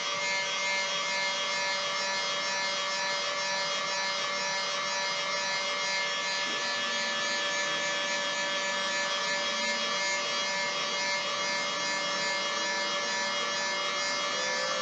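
Electric heat gun running steadily, a constant rush of blown air with a few steady tones from its fan motor, while it shrinks heat-shrink rubber grip tubing onto a cork rod handle.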